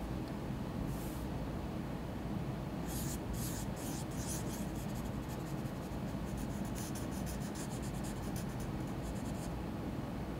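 Pen scratching on paper in separate clusters of short strokes, lifted between marks as small glyphs are drawn: a brief stroke about a second in, a cluster a few seconds in, and a longer run of quick strokes in the second half. A steady low hum lies underneath.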